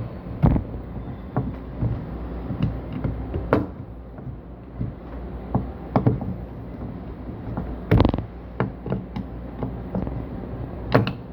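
Scattered clicks and knocks of metal parts being handled and fitted together as a solenoid valve is reassembled by hand, with a few louder knocks, over a steady low hum.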